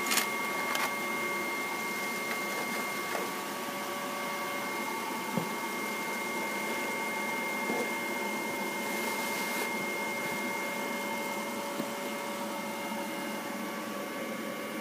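Steady machine hum with a thin high whine over an even hiss, and a few faint clicks.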